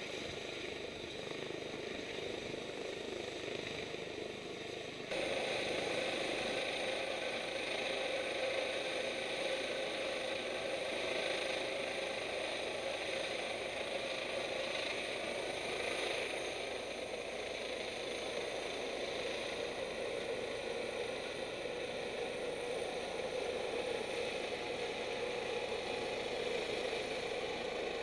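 Rescue helicopter's turbine engine and rotor running steadily as it lifts off and climbs away, with a thin high whine; the sound steps up in level about five seconds in.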